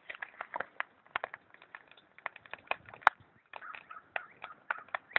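Irregular clicks and pops with one sharp crack about three seconds in, from a homemade coiled pop-pop boat motor heated by a wood fire. The fire is crackling and the submerged pipes are spitting out air in bubbles, so the motor has not yet settled into running.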